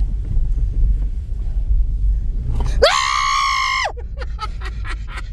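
A person screams once, about a second long, near the middle: the pitch shoots up, holds high and then drops away. Under it runs the steady low rumble of the car moving.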